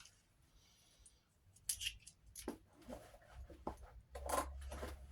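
Caterpillar XL 9-in-1 multi-tool being handled and worked open: a string of faint, short metallic clicks and scrapes, starting about a second and a half in, with some low handling rumble near the end.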